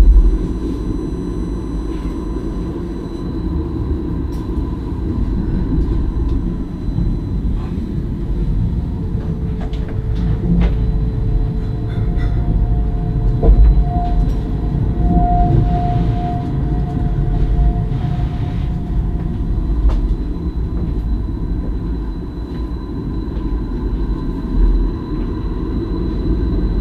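Stadler Variobahn tram running along its track, heard from inside the driver's cab: a steady low rumble with scattered clicks, joined by a steady whine for several seconds in the middle.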